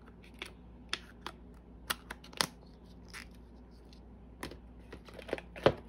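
Small hard plastic ice-cream cups and snap-on lids handled and set down, making scattered light clicks and taps, with the sharpest knock near the end.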